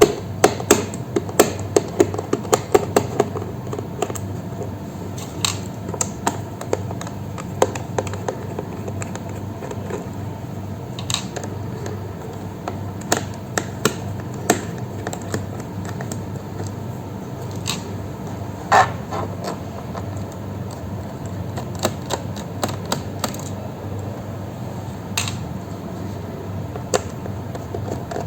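Irregular small clicks and taps of plastic and metal as a laptop is handled and worked on for a hard drive replacement, thickest in the first few seconds, over a steady low hum.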